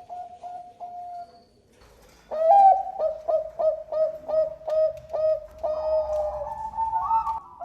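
Zebra dove (Bangkok perkutut) cooing: a run of short soft coos, a pause of about a second, then a louder phrase of rapid staccato coos, about three a second, ending in longer drawn-out notes.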